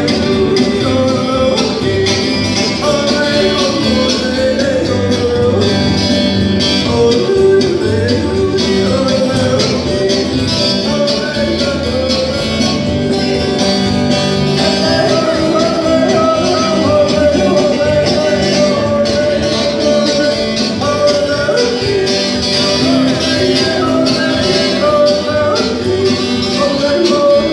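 Live country gospel music: electric guitar and keyboard playing steadily, with a singer carrying the melody.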